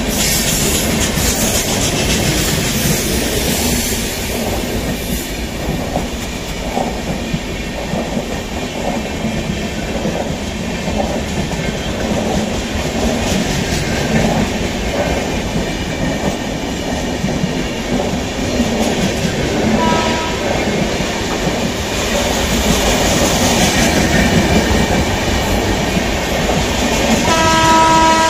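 A rake of LHB passenger coaches runs past at speed: a steady rumble of wheels on rail with rhythmic clatter over the rail joints. A brief faint horn toot sounds about two-thirds of the way through, and near the end a loud, long multi-tone train horn starts.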